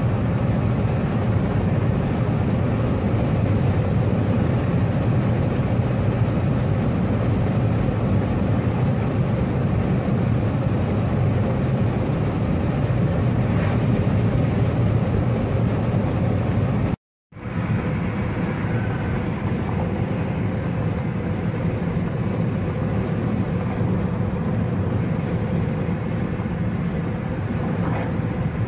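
Steady road and tyre noise with engine hum inside a car travelling at highway speed. It cuts out to silence for a moment about two-thirds of the way through, then resumes unchanged.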